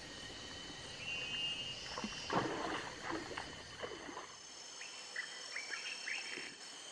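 River water sloshing and splashing around people wading waist-deep, loudest between about two and four seconds in, over a steady high chirring of insects.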